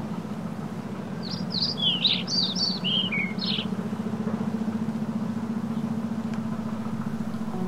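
A songbird sings a quick run of chirps and falling whistled notes lasting about two seconds, starting about a second in, over a steady low hum.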